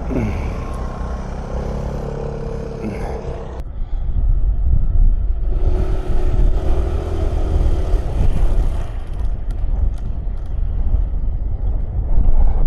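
A 125 cc motor scooter's engine running steadily on the move. About four seconds in, heavy low wind rumble on the microphone swells up and largely drowns it out.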